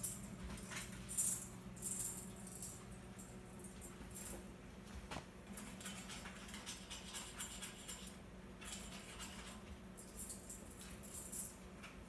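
Scattered clicking and rattling from an Indian ringneck parakeet climbing on its metal wire cage, its beak and claws on the bars, over a steady low hum.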